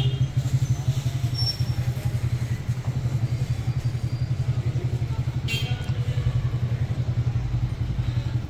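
Street traffic: a motor vehicle engine idling close by with a steady low throb, and a brief high beep about five and a half seconds in.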